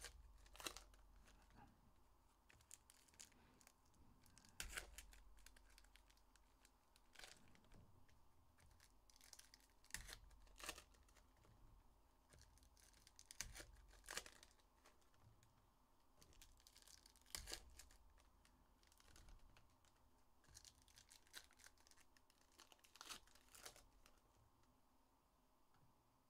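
Foil wrappers of Panini Illusions football card packs being torn open and crinkled by hand: a series of short, faint rips and rustles every few seconds.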